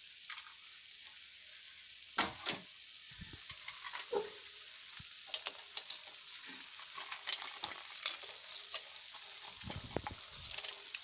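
Ghee-roasted moong dal halwa sizzling softly in the pan, with scattered light clicks and scrapes as cashews and almonds are added on top, and a couple of louder knocks.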